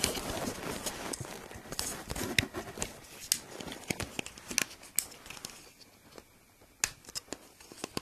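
Irregular sharp plastic clicks and snaps as the cover of a photoelectric smoke detector is pried off by hand, easing off into a short lull about three-quarters of the way through before a few more clicks.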